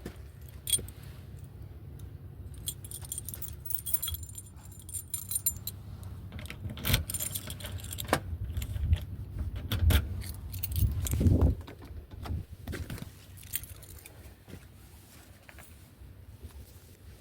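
A bunch of keys jangling as a door is locked, followed by several clunks and knocks from about seven to twelve seconds in.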